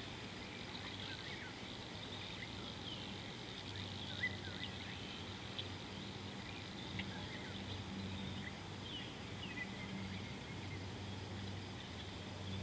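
Bush ambience: a steady high insect hum with scattered short bird chirps throughout, over a faint low hum that sets in a few seconds in.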